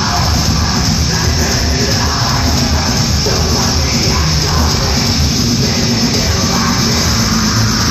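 Heavy metal band playing live: distorted electric guitars, bass and drums in one loud, dense, steady wall of sound.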